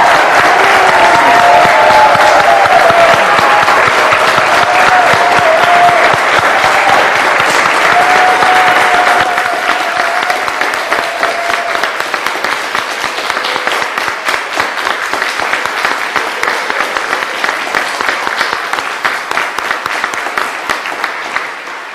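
A large congregation applauding, with a few voices calling out over it in the first half. The clapping thins out and grows quieter through the second half.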